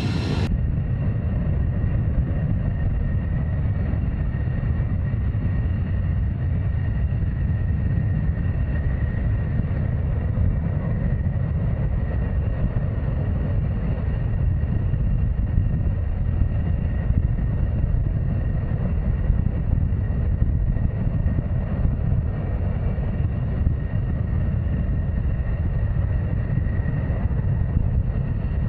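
Jet aircraft engine noise: a steady low rumble with a faint steady high whine over it.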